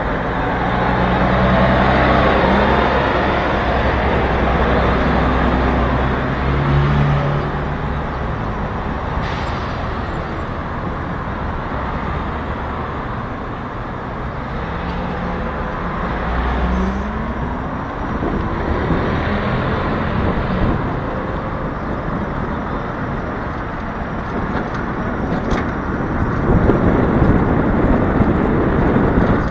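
Road and traffic noise on a ride aboard a small motor scooter in city traffic, with cars and other vehicles passing and engine hum rising and falling. A louder low rumble builds near the end.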